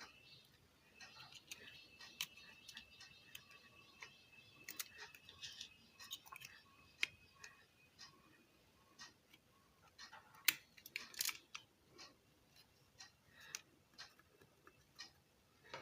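Faint clicks and taps of small tools on a car stereo's circuit board as the volume control switch is desoldered and removed, with a faint steady high tone through the first half.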